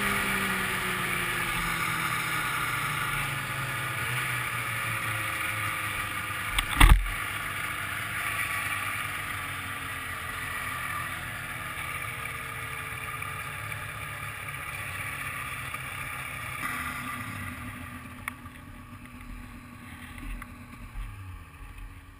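1995 Ski-Doo Grand Touring snowmobile's two-stroke engine running along the trail, its pitch falling as the sled slows, with one sharp thump about seven seconds in. Near the end the engine drops toward idle as the sled comes to a stop.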